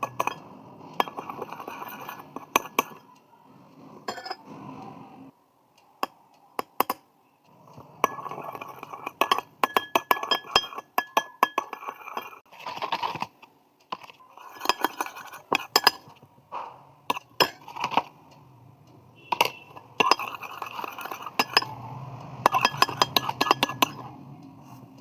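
Slime being mixed in a glass bowl: many sharp clinks of a utensil striking the bowl over a softer stirring noise, in bursts with short pauses.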